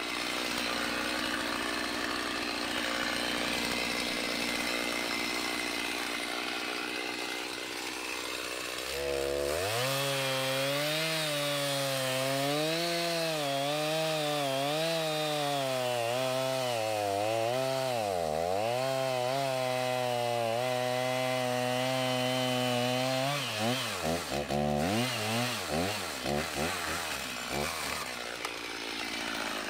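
Stihl two-stroke chainsaw cutting through a white oak log. It runs at a lower, softer note at first, then from about nine seconds in it is at full throttle in the cut, its pitch sagging and recovering under load with one deep bog. Near the end it is revved up and down in quick bursts.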